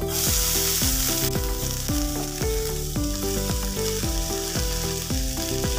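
Shredded cabbage tipped into a hot pan of oily masala, sizzling: the hiss flares as it goes in and eases after about a second into a steady fry. Background music with a steady beat plays throughout.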